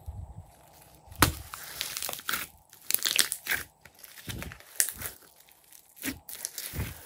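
Hands squeezing and kneading a bowl of glossy slime with foam beads mixed in: squishing, sticky noises in irregular bursts, starting about a second in.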